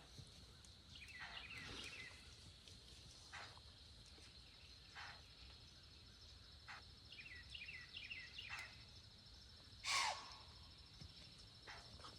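Quiet rural field ambience: a steady high insect hum, with short runs of falling chirps and a few brief rustles. One louder, sharp call or snap comes about ten seconds in.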